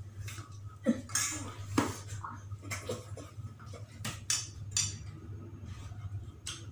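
A metal spoon clinking and scraping against a ceramic bowl as food is scooped out: a string of sharp, separate clinks, with a low steady hum underneath.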